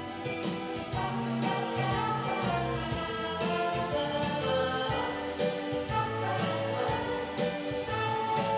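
Instrumental backing track of a French pop song playing between verses, with sustained chords over a steady beat and no lead vocal.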